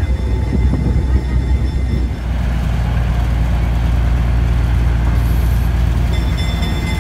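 A railroad roundhouse turntable turning with a locomotive and a passenger coach on it: a steady low mechanical rumble, with a faint high whine near the start and again near the end.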